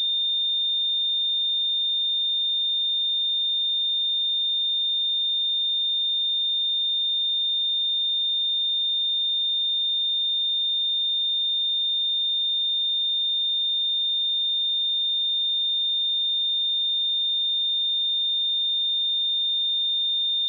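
A pure 3625 Hz sine-wave test tone, one steady high-pitched note held at an even level.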